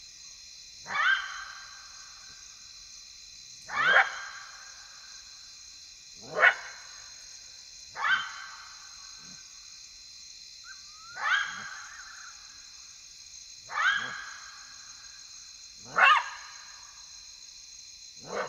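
Side-striped jackal giving yelping barks: eight short calls, each sweeping up in pitch, spaced every two to three seconds. A steady chorus of crickets or other insects shrills behind them.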